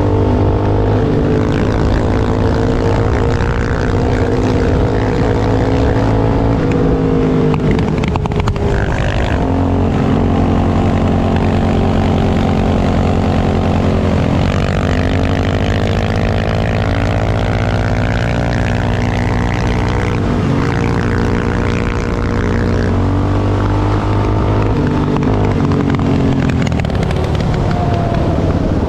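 Yamaha Raptor 660 ATV's single-cylinder four-stroke engine running under way, its note climbing and falling back several times as the rider works the throttle.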